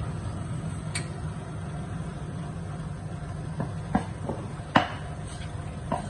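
Two-group Brasilia espresso machine running its pump with a steady low hum while hot water flushes from both group heads. A few sharp clicks come through, the loudest about three-quarters of the way in.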